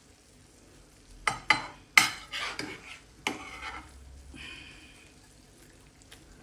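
Slotted metal spatula scraping and knocking against a ceramic baking dish as it cuts into and lifts a portion of baked egg-and-vegetable bake. A quick run of sharp scrapes and clinks about a second in, then a fainter scrape near the middle.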